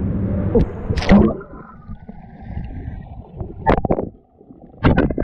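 Pool water splashing as a waterproof camera is thrown in and goes under: one loud splash about a second in, then muffled underwater gurgling, with more splashing and knocks near the end.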